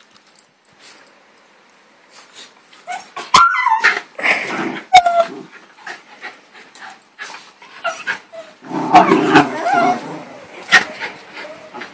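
Two miniature schnauzers play-fighting, with short yips and whines and sharp scuffling clicks. It starts about three seconds in and comes in two loud bouts, about four and nine seconds in.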